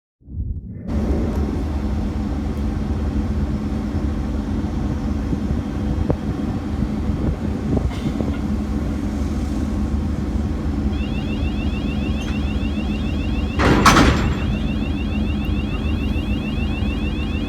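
A boat's diesel engine running with a steady low rumble. About fourteen seconds in comes a loud short rush of noise, and from about eleven seconds a fast, high-pitched repeating chirp sounds over the engine.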